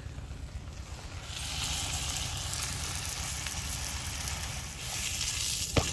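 Potato-stuffed paratha sizzling in butter on a hot iron tawa, the hiss setting in about a second in. A sharp knock near the end.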